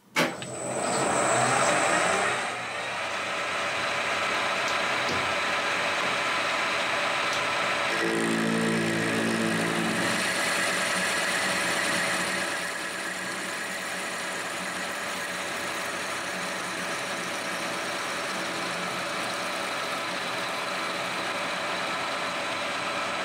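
Colchester 1800 manual lathe starting up and then running steadily while a parting tool cuts off a threaded hex-bar stud under dripping cutting fluid. A thin high tone sounds for the first two seconds after start-up, and a brief low hum joins in for about two seconds some eight seconds in.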